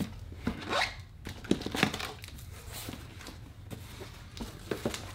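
Cardboard shipping box being opened by hand: flaps rustling and scraping, with a short tearing sound and a few light knocks, busiest in the first two seconds.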